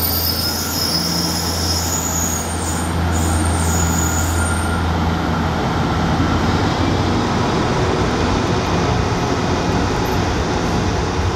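Departing diesel multiple unit, with Class 153 railcar 153354 at the rear, running past. There is a high wheel squeal and a low underfloor diesel engine drone for the first few seconds. The squeal stops about five seconds in and the drone shortly after, leaving a steady rumble of wheels on rails as the train draws away.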